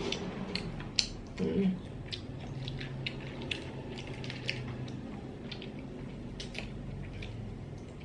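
Small sea-snail shells clicking and tapping as they are picked up and handled by fingers, in scattered light clicks about one or two a second, with a short hummed murmur about a second and a half in.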